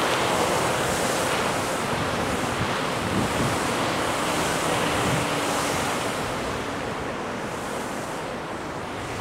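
Large fountain's many water jets shooting up and splashing down into the basin: a steady rushing hiss of falling water, easing a little near the end.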